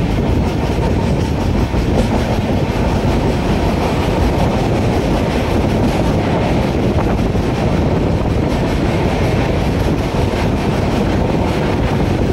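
A passenger train running on the track: a steady, loud noise of wheels and carriage, deepest in the low end, with no let-up.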